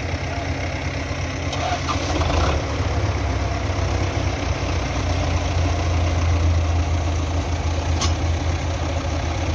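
Belarus tractor's diesel engine running steadily, growing louder about two seconds in and easing off again near the end. A single sharp click about eight seconds in.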